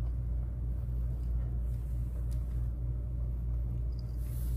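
A steady low rumble or hum with a few faint crunches as a cat chews dry kibble.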